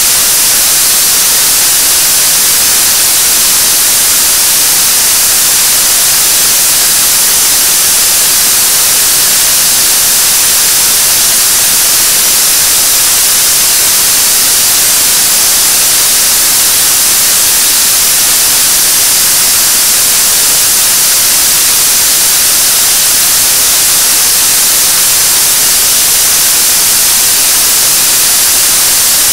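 Nuri (KSLV-II) third-stage 7-tonne-thrust liquid rocket engine, burning kerosene and liquid oxygen, firing at steady state on a test stand during a long-duration hot-fire test. It makes a loud, constant hiss of exhaust noise, strongest in the high range, with no change in pitch or level.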